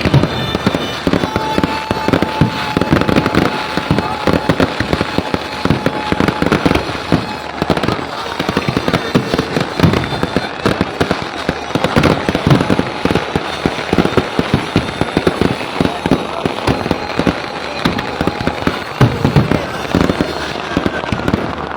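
Fireworks and firecrackers going off in a rapid, continuous barrage of bangs and crackles.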